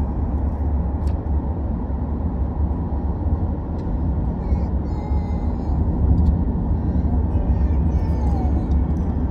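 Car cabin road noise while driving: a steady, deep rumble from the car's engine and tyres on the road.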